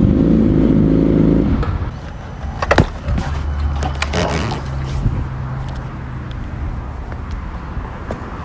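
Sport motorcycle engine idling loudly as the bike comes to a stop at the curb, then cut off about a second and a half in. A few sharp clicks and knocks follow over a low steady rumble.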